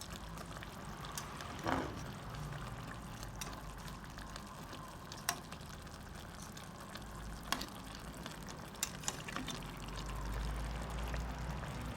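Coconut milk sauce simmering in a pot of fish and vegetables, a steady low sound with a few light clicks.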